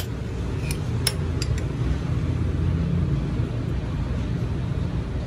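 Steady low mechanical hum in the background, with four light metallic clicks about a second in as small steel jack parts are handled.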